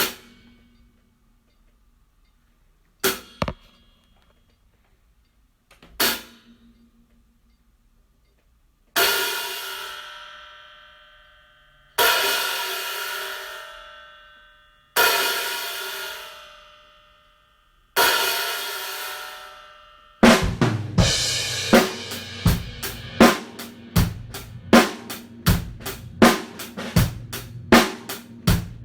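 Diril 14-inch Primitive hi-hat cymbals played alone: three short, tight strikes about three seconds apart, then four hits on the open hats, each ringing out for about three seconds. About twenty seconds in, a full drum-kit groove starts, with kick and snare under the hi-hat.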